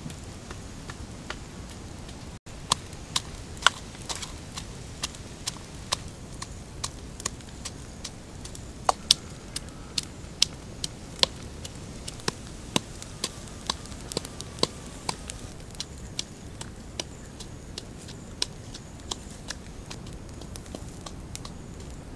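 Wood fire crackling under a flat cooking stone: sharp, irregular pops, about two a second, over a steady hiss.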